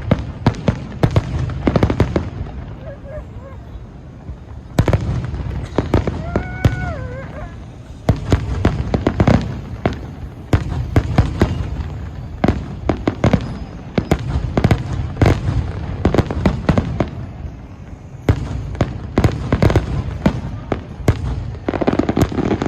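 Fireworks display: many sharp bangs and crackles in dense clusters, with rumbling low booms under them.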